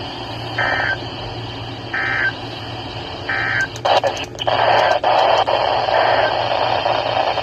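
Three short, identical bursts of Emergency Alert System digital data tones, about a second apart, the end-of-message code that closes a weather radio alert. Then about four seconds of louder radio static with crackles, over a steady low hum.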